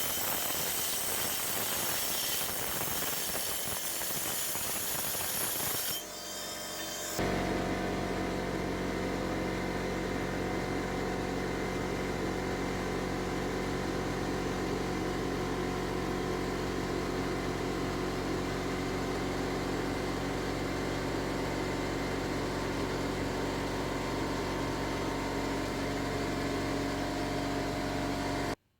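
High-speed rotary grinding tool running and grinding: a harsh hissing grind for about six seconds, then, after a brief drop, a steady motor sound holding a constant pitch that cuts off abruptly near the end.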